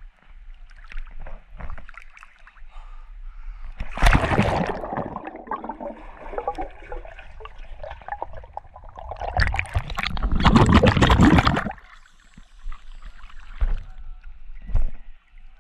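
Swimming-pool water splashing and gurgling around a GoPro action camera as it dips in and out of the water, with loud bursts of splashing about four seconds in and again from about nine to twelve seconds.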